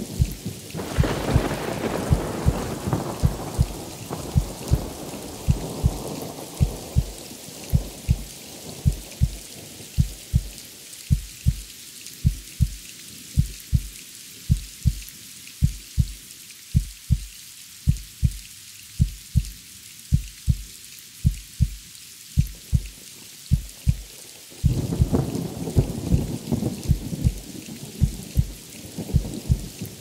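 Heartbeat sound, a steady lub-dub double thump about once a second, over steady rain hiss. Thunder rumbles about a second in and fades over several seconds, then rolls in again loudly near the end.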